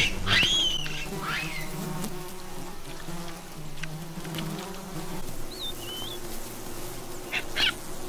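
Swarming honeybees buzzing around a raided hive, a steady drone that wavers in pitch. A few high squeals come in the first second or so, and short high chirps around the sixth second.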